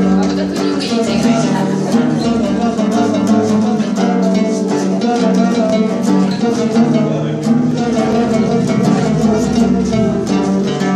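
A small ensemble of domras, round-bodied Russian folk lutes, playing a lively tune live, with fast plectrum picking and held notes.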